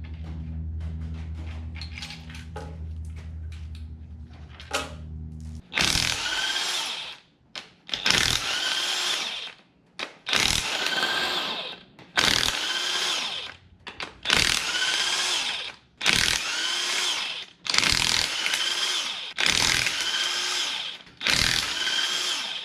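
Cordless power tool running in short repeated bursts, about one every two seconds, with a motor whine in each burst, as bolts are run out of the engine. For the first five or so seconds there is a steady low hum before the bursts begin.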